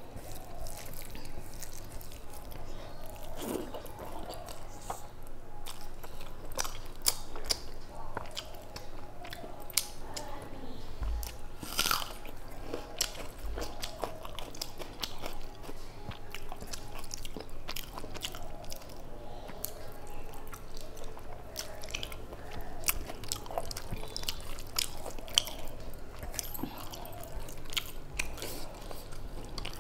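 Close-up chewing and biting of rice and curry eaten by hand, with frequent irregular wet clicks and small crunches.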